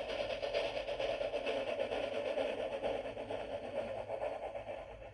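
A steam-train sound effect played from a children's sound book's small built-in speaker: a steady, thin, hissing chug.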